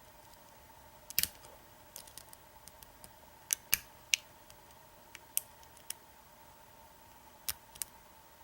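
Lock pick and tension wrench working the pins of an American 1100 padlock: scattered sharp metallic clicks, a few louder ones among fainter ticks, as the pins are single-pin picked.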